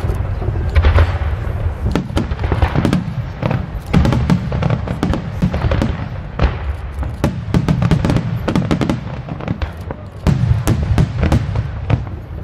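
Aerial fireworks display: shells bursting in rapid succession, a dense run of booms and sharp cracks over a continuous low rumble.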